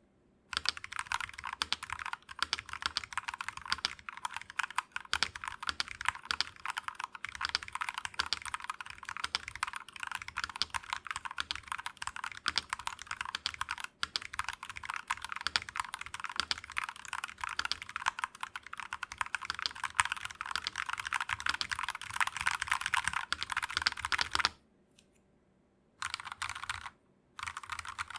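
Fast, continuous typing on an MK870 mechanical keyboard, a rapid clatter of keystrokes that stops about 24 seconds in and then resumes in two short bursts near the end.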